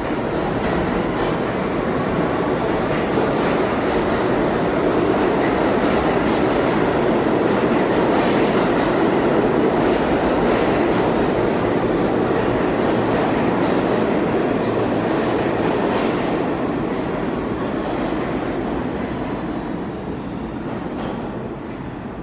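New York City subway train running along the platform, a loud steady rumble of wheels and motors with clattering clicks from the wheels on the rails. It swells to a peak about halfway through, then fades as the last cars clear the station.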